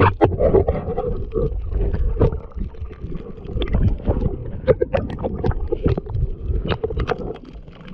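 Muffled underwater sound of a swimmer's water movement picked up by a submerged camera: low rumbling with many irregular clicks and knocks.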